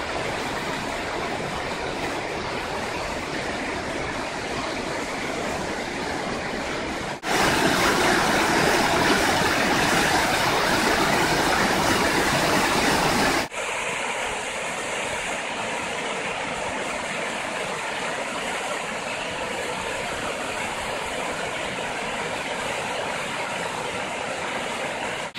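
Whitewater river rushing over boulders and small falls, a steady roar of water. It jumps louder about seven seconds in and drops back abruptly about six seconds later.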